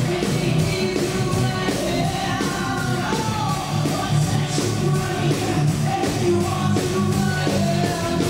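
Live band playing, with a woman singing into a microphone over it.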